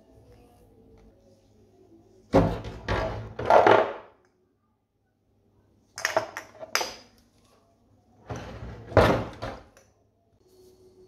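Household handling noises: three bursts of knocks and clatter, as of things being moved and set down, with a few seconds of quiet between them.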